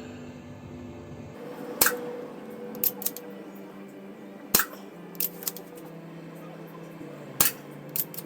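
Artemis CP2 CO2 air pistol fired three times, about three seconds apart, each shot a sharp crack followed about a second later by quieter clicks.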